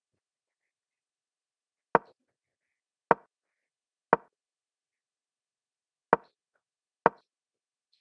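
Digital chess board's piece-move sound effect, a short wooden clack played as each piece is moved: three about a second apart, then after a pause two more.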